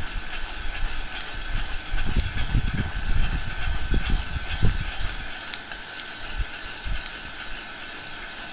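Electric heat gun blowing steadily with a thin whine into a steel pot of coffee beans, with scattered sharp pops of the beans in second crack. The beans rattle and scrape as a spoon stirs them, more heavily in the first half.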